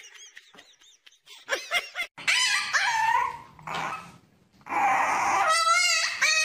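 Puppy whining and yipping, starting about two seconds in, with high cries that bend and waver in pitch. The loudest is a long wavering whine near the end.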